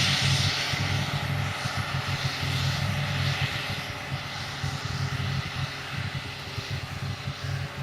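Diesel engine of heavy silage-harvesting machinery running steadily with a low hum and a high hiss, gradually fading.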